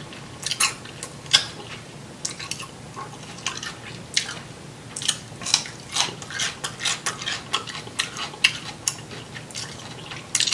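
Close-miked chewing of crisp cucumber: irregular wet crunches and mouth clicks, coming thicker in the middle of the stretch.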